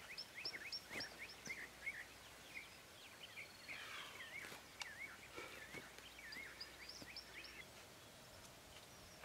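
Faint birdsong: quick runs of short, repeated chirping notes, with a warbling run in the middle, and a few soft clicks.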